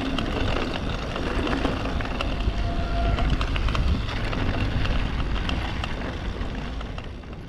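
Downhill mountain bike riding fast over a dirt and rock trail: wind buffeting the microphone as a steady low rumble, with frequent clicks and rattles from the bike and tyres. It fades out near the end.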